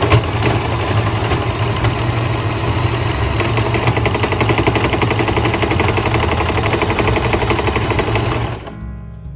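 Electric sewing machine running a fast, even run of stitches, stopping about eight and a half seconds in.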